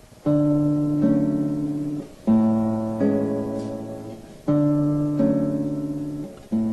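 Flamenco guitar playing slow strummed chords in pairs, a new pair about every two seconds, each chord left to ring and fade.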